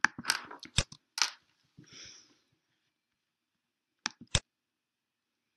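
Computer keyboard and mouse clicks: a quick run of keystrokes in the first second and a half, then two sharp clicks about four seconds in.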